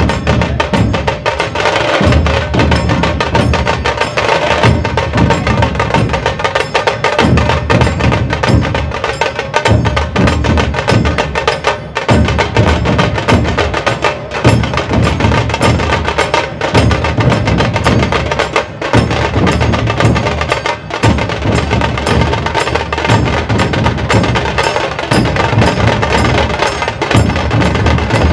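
Dhol tasha ensemble playing loudly: deep barrel-drum dhol strokes under fast, dense, sharp tasha strokes, with a steady metallic ringing above. The deep strokes come in phrases broken by short pauses every few seconds while the sharp strokes run on.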